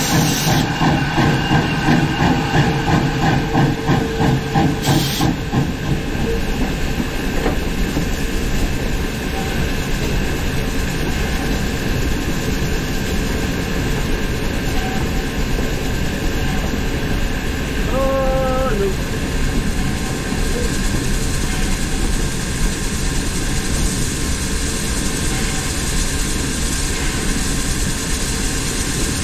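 Virginia & Truckee No. 25, a 4-4-0 steam locomotive, running, its exhaust chuffing about twice a second for the first few seconds, then settling into a steady rumble and hiss of the moving engine on the rails. A short high tone sounds briefly about two-thirds of the way through.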